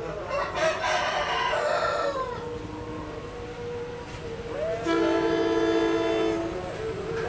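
A rooster crows once, then a diesel locomotive's air horn sounds about four and a half seconds in, a steady multi-tone blast of about two seconds that starts with a short upward slide. It comes from the approaching passenger train.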